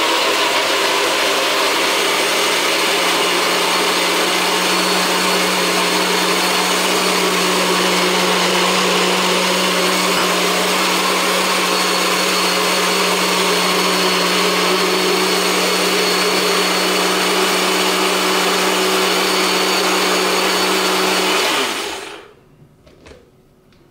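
NutriBullet blender running steadily as it purées a fruit-and-oil dressing, then cutting off and winding down near the end.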